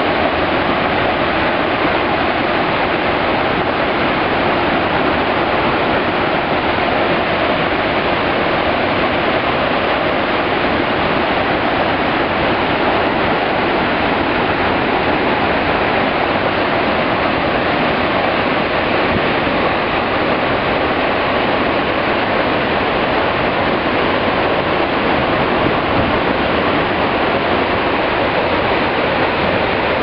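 A waterfall plunging into a river: a loud, steady rush of falling water.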